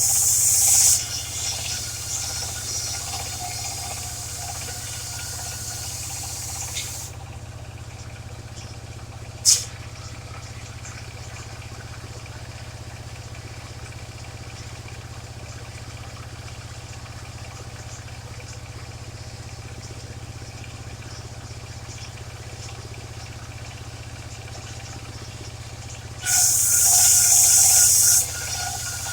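Engine of a mobile circular sawmill running steadily, with the spinning blade ripping through a waru log in loud hissing bursts at the start and again near the end, and a fainter rasp for several seconds after the first cut. A single sharp knock comes about a third of the way in.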